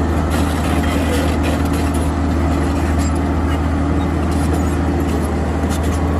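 Steady, loud low engine rumble of a bulldozer, even and unchanging like heavy machinery idling.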